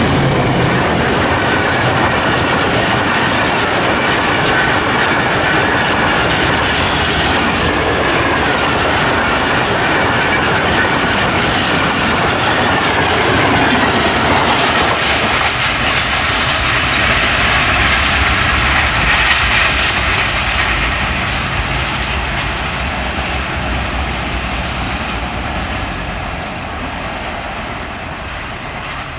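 Pakistan Railways passenger coaches rushing past at speed close by, their wheels running over the rails. From about twenty seconds in the sound fades steadily as the train moves away.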